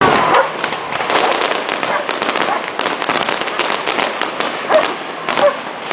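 Fireworks and firecrackers going off in a rapid, continuous string of pops and cracks.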